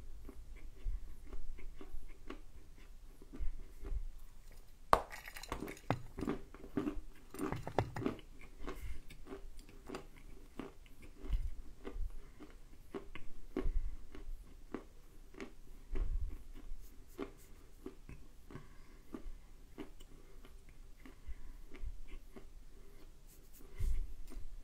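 A person biting and chewing a chunk of dry edible clay. About five seconds in there is a sharp crunch of a bite, then a few seconds of dense crunching, settling into slower chewing with small clicks.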